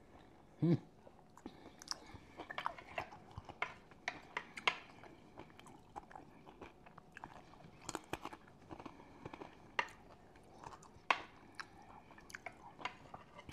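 Close-miked chewing of a forkful of bacon bits and pineapple, with many small irregular mouth clicks and smacks. There is a short vocal sound about a second in.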